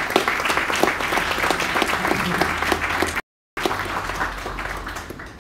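Applause from the audience and panelists, many hands clapping at once, thinning out near the end. The sound cuts out completely for a moment a little over three seconds in.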